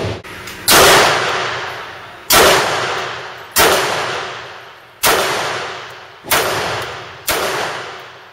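A single pistol shot cut short at the start, then six shots from a Bersa .380 pistol fired singly, a second or so apart. Each shot rings out with a long echo in the indoor range.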